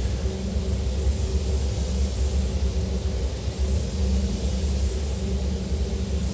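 Steady low rumble with an even hiss above it: a paint booth's air-handling fans running while compressed air is fed through a hose to a spray gun being worked over a car's bonnet.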